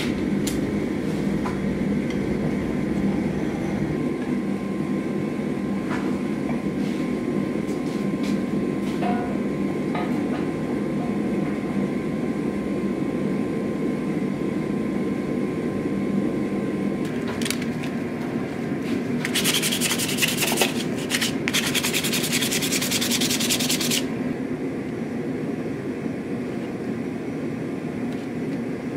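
Gas forge with an electric blower running with a steady rushing noise and hum, with a few light metallic clicks during the first ten seconds. About two-thirds of the way through, a loud crackling hiss lasts about five seconds and then stops.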